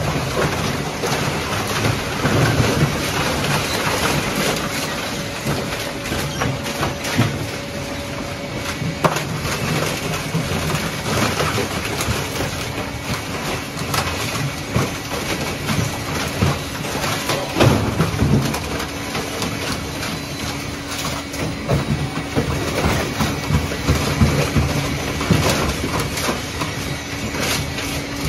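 Dual-shaft shredder tearing up whole refrigerator and freezer cabinets: a continuous machine hum under dense cracking and crunching, with louder knocks now and then.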